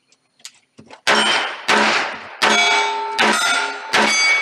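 Five semi-automatic pistol shots about three-quarters of a second apart, starting about a second in, each followed by the ringing clang of a struck steel target plate.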